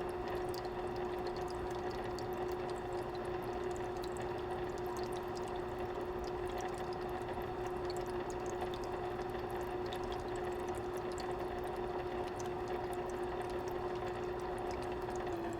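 Aquarium filter running: water pouring and trickling steadily over a steady motor hum, with many small droplet ticks.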